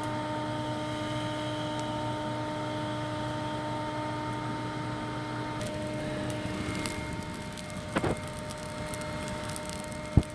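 Steady whirring hum of the blower feeding air through a pipe into a pit forge; its tone shifts a little about halfway through. A few sharp knocks and crackles come near the end.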